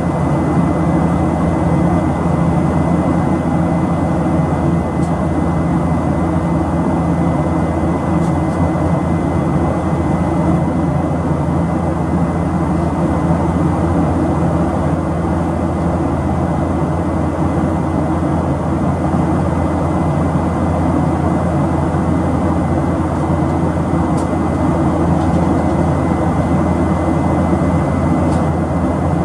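Steady cabin noise of a Boeing 737-700 in flight, heard at a window seat beside its CFM56-7B jet engine: an even rushing roar with a deep hum underneath and a thin, steady high tone.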